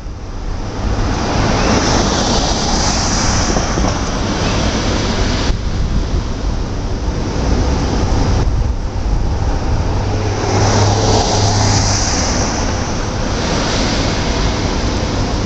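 Road traffic: cars passing on the street, their tyre noise swelling twice, about two seconds in and again about eleven seconds in, over a steady low rumble.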